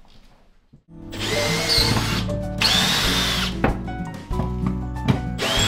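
Cordless power drill running in three bursts of about a second each, each with a high whine, over background music that starts about a second in.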